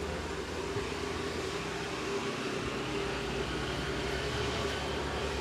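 Steady low engine hum of a running vehicle.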